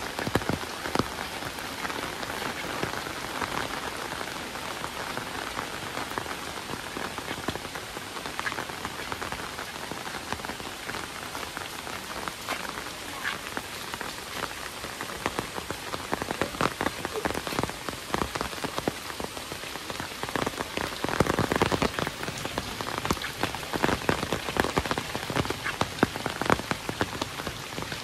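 Heavy rain falling steadily, with many close drops heard as sharp ticks. The drops grow louder and denser about three quarters of the way through.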